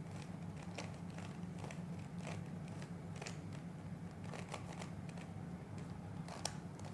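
Plastic Rubik's cube layers being turned by hand, with irregular clicks of about two or three a second.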